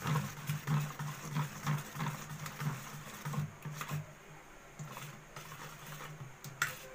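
Wire whisk beating a thin jalebi batter in a steel bowl. The wires swish through the liquid and click against the metal about three times a second, softer in the second half.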